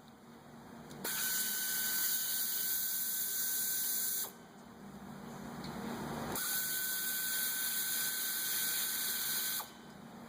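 Pneumatic air ratchet running in two bursts of about three seconds each: a hiss of air with a steady whine, backing out the brake caliper bolts.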